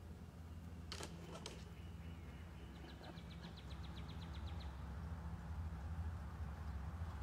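Outdoor background with a steady low rumble, two sharp clicks about a second in, and a fast ticking trill of about fifteen ticks near the middle.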